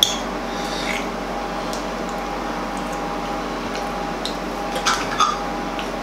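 Metal fork clinking and scraping against a ceramic plate as it cuts through a pancake: a sharp clink right at the start and a few more about five seconds in. A steady background hum runs underneath.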